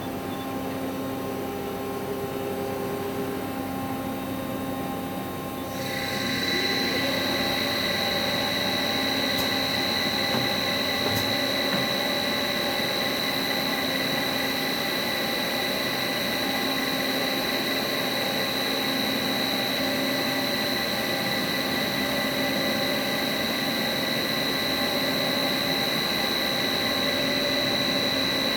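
Wada Machinery WHN-400NCR NC double-head milling machine running with a steady mechanical hum. About six seconds in, a steady high-pitched whine comes in and the machine gets a little louder, then runs evenly.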